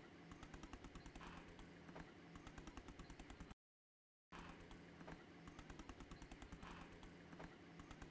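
Faint, rapid tapping of a stencil brush dabbing paint straight down through a stencil onto card, several taps a second, over a faint steady hum. The sound drops out completely for under a second about halfway through.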